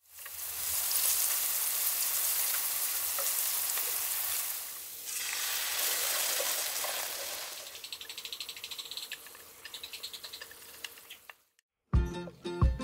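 Sliced king oyster mushrooms sizzling as they fry in oil in a pan, then a soy-based sauce sizzling as it is poured into a hot pan with garlic. The sizzle thins to fainter, rapid popping, and music starts near the end.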